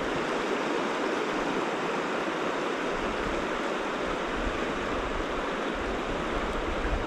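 Shallow stream water running over a rocky riffle just below the microphone: a steady rush of flowing water.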